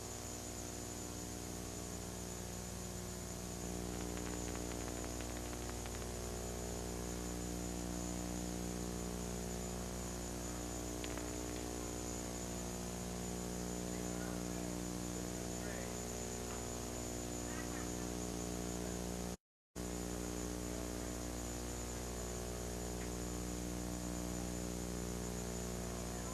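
Steady electrical mains hum with many overtones over a background hiss, the sound of an old broadcast recording with no program audio. About three-quarters of the way through it cuts to silence for a split second.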